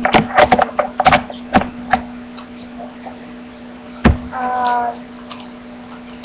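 Handling noise on the recording device: a quick run of knocks and clicks, then one heavy thump about four seconds in. A short hummed vocal sound follows the thump, over a steady low electrical hum.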